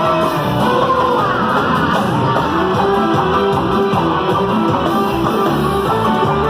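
Guitar-driven music playing with a steady beat.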